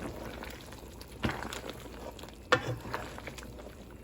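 A pot of lentils and chicken boiling with a steady bubbling hiss. Two short sharp knocks come about a second and about two and a half seconds in.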